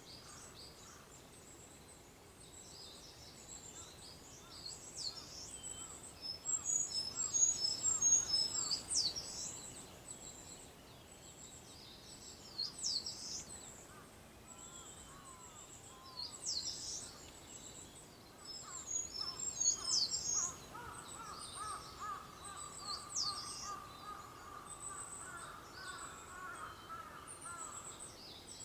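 Early-morning birdsong from several small songbirds: bursts of high chirps, trills and quick down-sweeping whistles, loudest in clusters. In the second half a lower, rapid string of repeated calls runs for several seconds over a faint steady background hiss.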